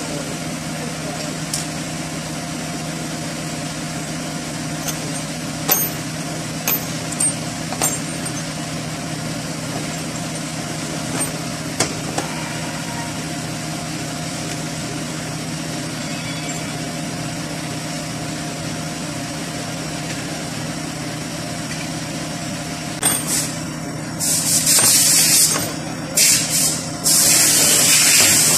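Steady low machine hum with a scattered series of sharp clicks and taps from hand work on a 6T75 automatic transmission's valve body. About 23 seconds in, loud hissing bursts begin, stop, then return near the end.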